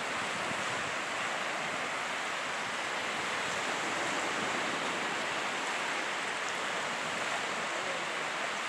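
Surf washing onto a sandy beach: a steady, even rush of small breaking waves.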